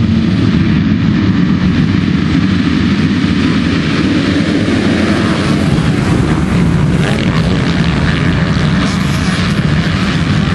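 A full field of MX2 motocross bikes held at high revs on the start line, then accelerating away together as the gate drops, a loud dense mass of engine noise. The steady held pitch breaks up in the first moment and gives way to the rougher sound of many bikes pulling away and racing past.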